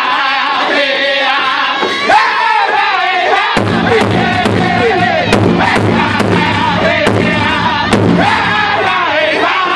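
Powwow drum group singing in unison over a steady beat on a large hide-covered powwow drum struck by several drummers with padded sticks. A little past a third of the way in, the low end fills out and the drum strikes come through harder and sharper, easing near the end.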